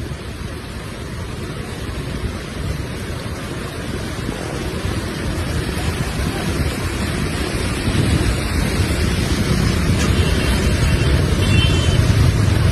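Floodwater rushing in a steady wash of noise that grows gradually louder, with wind on the microphone and a low rumble building over the last few seconds.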